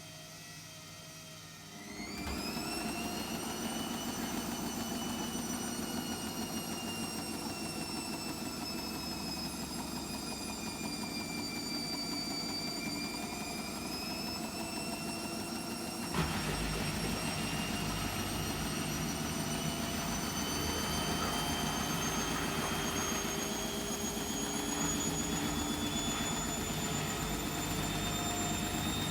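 Hotpoint WMFUG742 washing machine spinning an overloaded load of towels. The motor whine starts about two seconds in and rises, sags a little, then after a click about halfway through climbs steadily as the drum speeds up.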